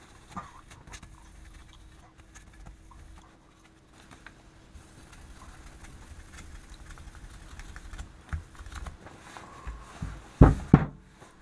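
Fine P3000 sandpaper rubbed by hand over a steel axe head, a faint scratchy rasp with small ticks. Near the end come two heavy thumps, the axe head being set down on the bench.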